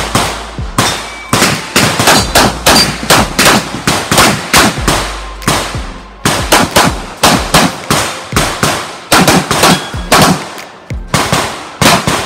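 Rapid semi-automatic handgun fire: a couple of dozen sharp shots in quick pairs and strings, each with a short echoing tail, with a brief lull about halfway through and another near the end.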